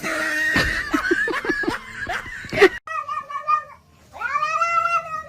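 A cat yowling twice: a short call, then a long drawn-out one that rises and falls in pitch. Before that comes a stretch of noisy clatter and short knocks.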